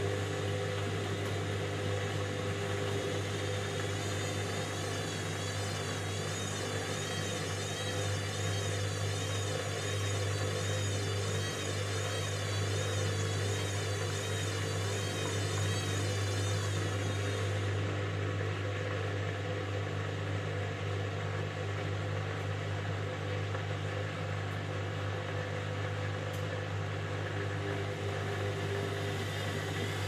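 Indesit front-loading washing machine running steadily with a constant low hum. A faint wavering high whine sits over it until about halfway through, then stops.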